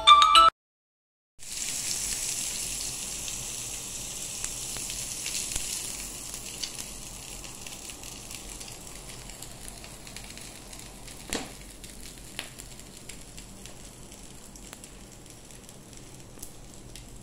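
Freshly grilled chicken kebabs sizzling: a steady crackling hiss that slowly dies down, with a few sharper clicks and crackles, one a little past the middle.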